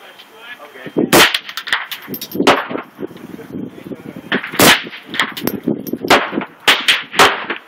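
Gunshots, about eight sharp cracks at irregular intervals, some much louder than others; the strongest come about a second in and at about four and a half seconds.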